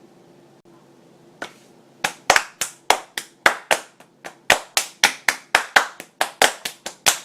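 Two people playing a hand-clapping game: sharp hand claps and slaps in a steady rhythm of about four a second, starting about two seconds in.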